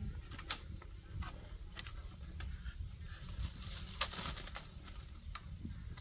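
Low, uneven wind rumble on the microphone, with scattered light clicks and a brief rustle about four seconds in.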